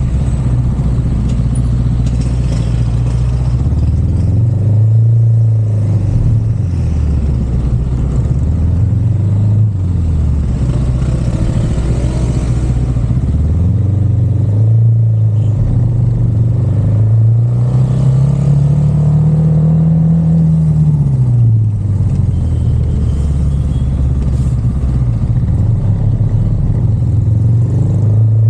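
Car engine running while driving, its low note rising and dropping in pitch several times as the car speeds up and slows, over a steady road rumble.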